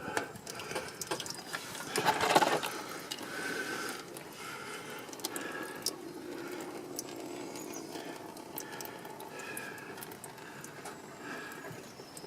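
Hand tools clicking and clattering on metal while the lower intercooler pipe is worked loose, with a louder stretch of scraping and rattling about two seconds in.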